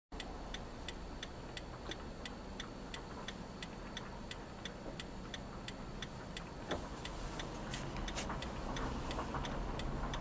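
Car indicator relay ticking steadily inside the car's cabin, about three clicks a second, over a low engine hum. A single knock sounds about two-thirds of the way through.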